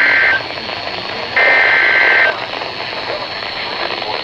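Emergency Alert System SAME header data bursts, a harsh digital screech, received over a weather radio. One burst cuts off about a third of a second in, and the next runs for about a second from about 1.4 s in. Radio hiss follows. The header marks the start of a new alert message.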